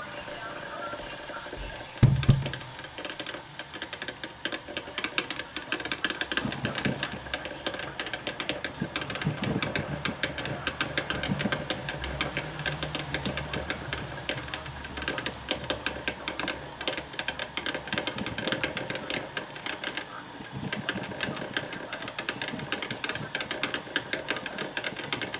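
Drip coffee maker brewing with a steady rapid sputtering crackle, with one sharp knock about two seconds in.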